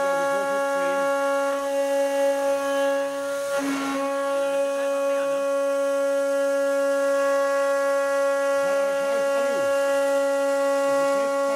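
CNC router spindle running at high speed and milling aluminium, with a steady high whine. A brief noisy burst comes about three and a half seconds in.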